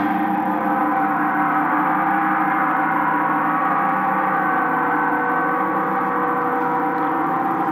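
A sustained gong-like metallic drone with many ringing overtones, starting suddenly and holding at an even level throughout.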